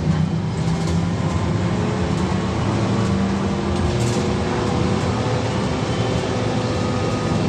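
Cabin noise of a VMZ-5298.01 trolleybus under way: the electric traction drive whines in several steady tones that rise slightly in pitch, over a constant rumble of road and body noise. A brief click comes about four seconds in.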